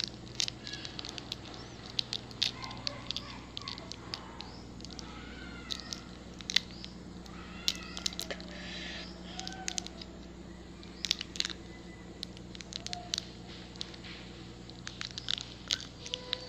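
Plastic snack wrapper crinkling and tearing in the hands, with crunchy chewing, as a series of sharp irregular crackles over a steady low hum. A few short pitched calls are heard faintly in the background.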